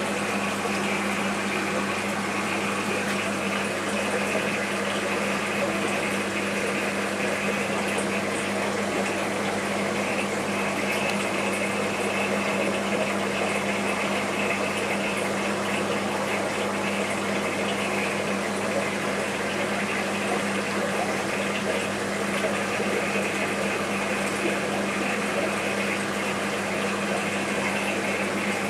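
Aquarium pump running with a steady low hum and an even rush of moving water.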